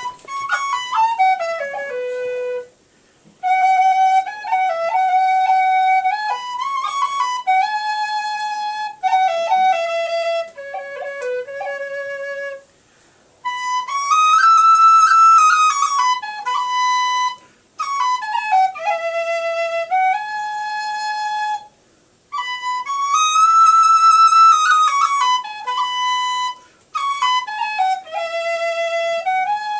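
Tin whistle playing a slow Irish air: long held notes with grace-note ornaments, in phrases broken by short pauses for breath.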